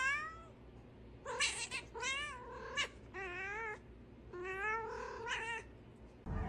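A pet animal's drawn-out, wavering cries, repeated about five times with short pauses between.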